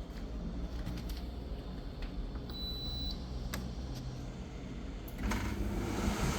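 Reiwa CP-1201RB portable air conditioner giving a single high electronic beep lasting just over half a second. About five seconds in, its fan starts, and a steady rush of air joins the low hum.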